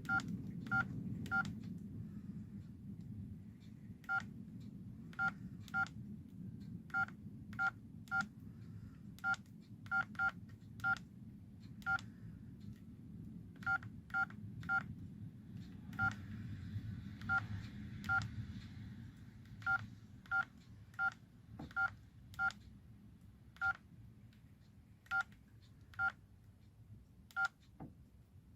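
LG V111 phone's keypad beeps as keys are pressed: many short two-tone touch-tone beeps, the same pitch every time, coming at an uneven pace and sometimes two or three in quick succession.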